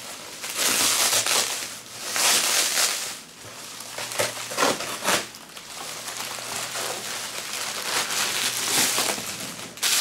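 Bubble wrap rustling and crinkling in several bursts as it is pulled off a glass hookah base.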